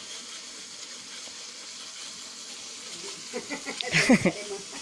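Chili paste with anchovies sizzling steadily in a wok as it is stirred with a ladle. About three seconds in, a brief louder burst of sound rises over the sizzle.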